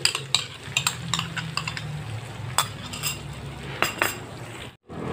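Beaten egg frying in a wok with a light sizzle, while a slotted plastic spatula knocks and scrapes against the pan in about ten sharp, irregular clicks. The sound cuts off suddenly near the end.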